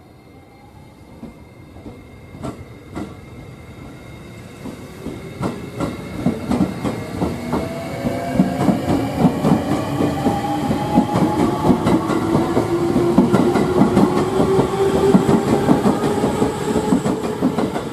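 E653-series electric train passing close, its wheels clattering rapidly over the rail joints, growing louder over the first eight seconds and staying loud as the cars go by. A whining tone rises slowly in pitch underneath.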